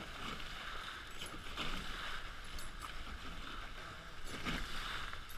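Hobie 16 catamaran's hulls cutting through choppy water under sail: a steady rush of water and spray, with a few small splashes.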